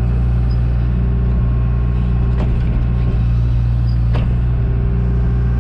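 John Deere 310G backhoe's diesel engine running steadily under digging, heard from the cab with its windows open, with two faint clicks from the digging gear.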